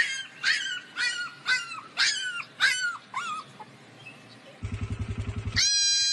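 A small puppy crying in a run of short, high yelps, about two a second, each falling in pitch, until about halfway through. A low buzz follows for about a second. Near the end a goat kid lets out a loud, steady bleat.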